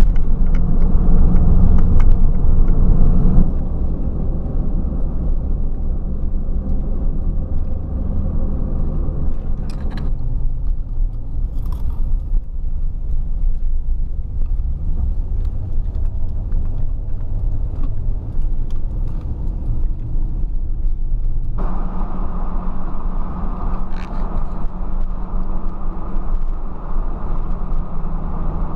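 Car driving, heard from inside: a steady low rumble of engine and road noise. It eases a few seconds in and picks up again about three-quarters of the way through.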